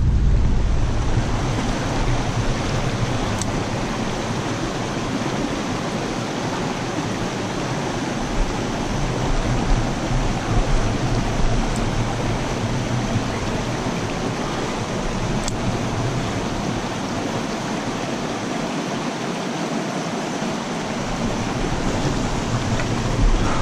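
Steady rush of running water from a small creek cascade spilling into a pool.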